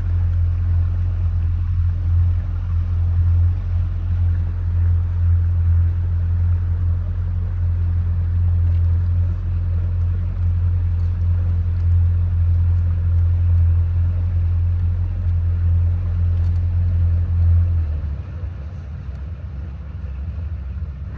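Boat motor running steadily at low speed with a deep hum, then throttled back about eighteen seconds in, after which it runs on more quietly.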